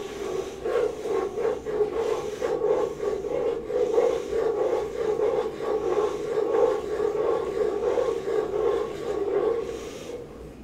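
Wooden spoon stirring and scraping around a saucepan of cooking butter-and-sugar toffee, a rhythmic scrape about two or three times a second that eases off near the end.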